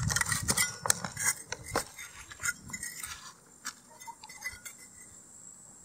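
Small metal hand spade digging into hard, dry, stony ground: a quick run of sharp clinks and scrapes over the first two seconds, then sparser ones that die away.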